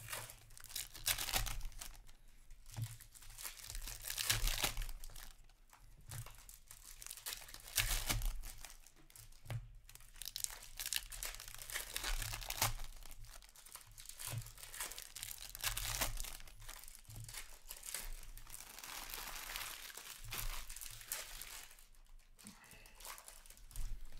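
Foil wrappers of Upper Deck Series 2 hockey card packs being torn open and crinkled by hand, in irregular crackling bursts.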